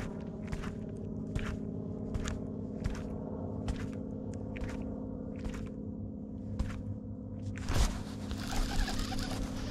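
A steady low hum from the boat, with light knocks about once a second. A louder thump comes near the end, followed by a splashy rush of noise.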